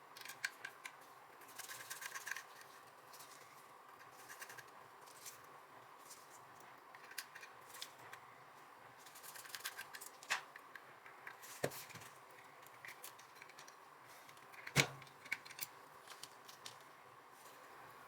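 Small, light clicks and scratchy handling noises from working on the opened mechanism of a Nikon S2 camera, with a few sharper clicks, the loudest about three-quarters of the way through.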